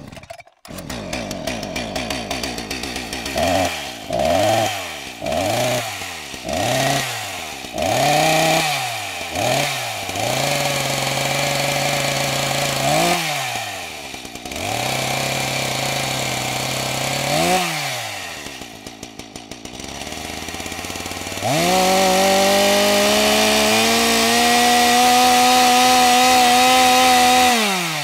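Chainsaw engine revved up and down about once a second, then run steadily with single revs. From about three-quarters of the way through it is held at high revs.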